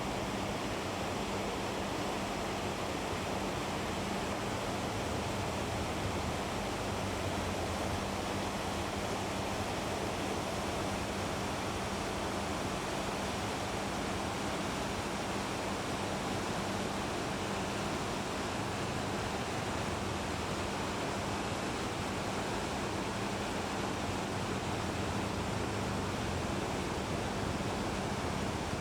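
Steady rushing water, an even noise with no breaks, over a steady low hum.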